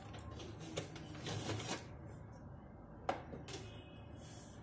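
A few keyboard key presses as sharp clicks, the sharpest about three seconds in, with short rustling noises and a low steady hum.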